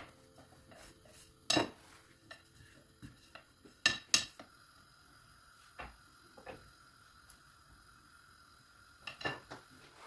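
Kitchen utensil knocks and clatter: a wooden rolling pin on a granite countertop and a pan on the stove top as flatbread dough is rolled and laid into the pan. A few sharp knocks come, loudest about a second and a half in and twice around four seconds, then a quiet stretch and lighter taps near the end.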